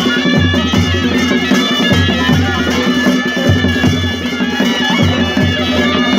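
Nepali traditional band (panche baja) music: a shrill, reedy shehnai-type pipe plays the tune over regular drum beats.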